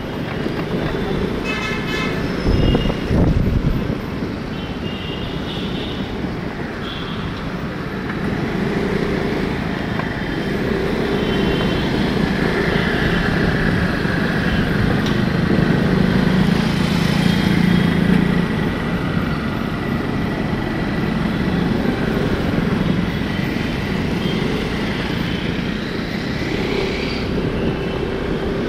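Busy city road traffic: vehicle engines running with a steady road noise, and short horn toots near the start.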